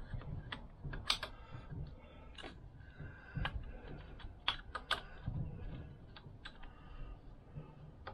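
Light, irregular metallic clicks and taps of a piston being handled and lined up on the connecting rod of a Vespa PX two-stroke engine.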